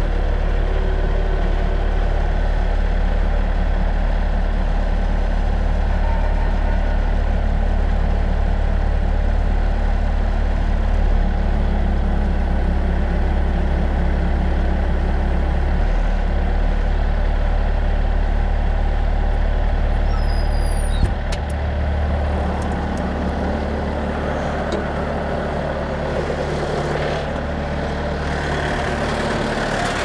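Bobcat S300 skid-steer loader's turbo diesel engine running steadily as it works its forks under a log, with a sharp knock about two-thirds of the way through, after which it runs a little quieter.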